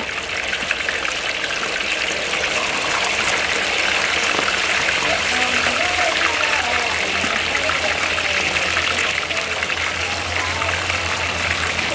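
Whole fish deep-frying in a wok of hot oil: a steady, dense sizzle with fine crackling.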